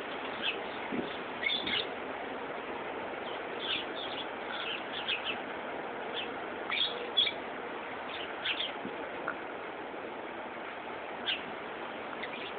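Lovebirds chirping: short, high chirps coming irregularly, sometimes in quick clusters, over a steady background hiss.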